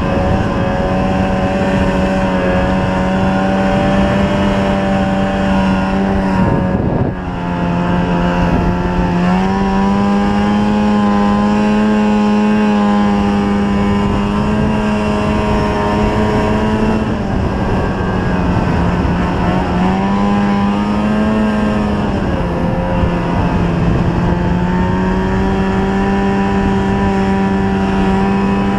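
Snowmobile engine running under way, its pitch stepping up and down a few times with the throttle. The engine briefly drops away about seven seconds in, then picks up again.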